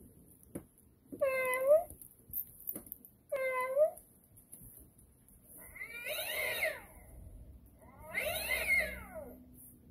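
Animatronic black cat Halloween toy playing recorded cat sounds: two short meows, then two longer, wavering yowls.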